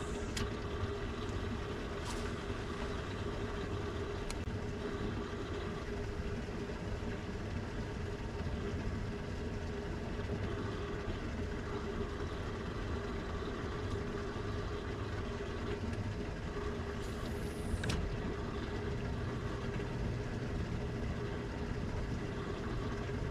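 Steady electric hum of a bass boat's bow-mounted trolling motor running. A brief high, falling whoosh comes about three-quarters of the way through.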